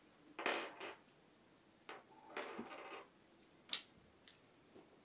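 Rummaging in a box of cosmetics: rustling packaging and light knocks as small nail polish bottles are picked out, with one sharp click about three-quarters of the way through.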